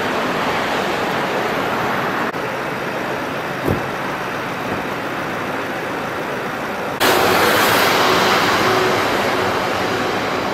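Steady road traffic noise that changes abruptly about two seconds in and again about seven seconds in, with one short thump near four seconds.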